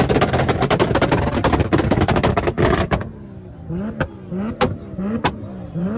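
Turbocharged 2JZ straight-six in a MK4 Toyota Supra on an anti-lag tune, exhaust popping and banging. For the first three seconds the pops come in a rapid crackling volley. After that the engine blips up in short revs, each cut off by a single loud bang, about one and a half bangs a second.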